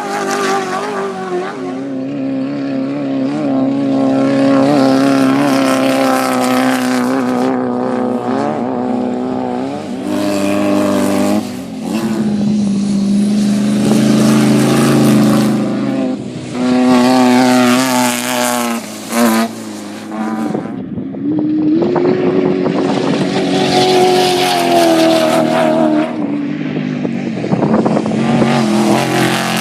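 Off-road race vehicle's engine running hard, its pitch climbing and falling again and again as the throttle opens and lifts, with a few brief dips in loudness.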